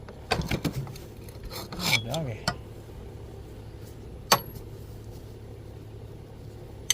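Metal tools and parts being handled after a stuck mower blade bolt has broken loose: a quick cluster of knocks and clanks near the start, then a single sharp metallic clink about four seconds in, over a steady low hum.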